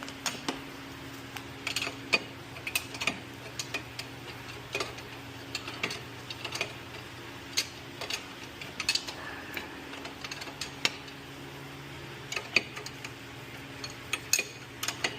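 Irregular metallic clicks and clinks of a hand wrench working the 21 mm ball joint nut onto the stud, a little at a time. A steady low hum runs underneath.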